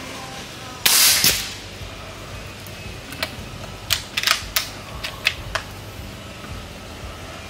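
A single shot from a suppressed Umarex Gauntlet II .30 calibre PCP air rifle about a second in: a sharp crack with a short tail. A few seconds later come a run of short metallic clicks as the action is cycled for the next pellet.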